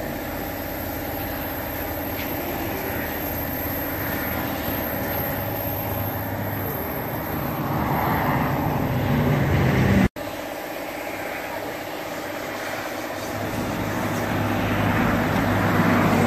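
A motor vehicle engine running steadily, with a swell of passing-traffic noise a little past the middle. The sound drops out abruptly for an instant about ten seconds in.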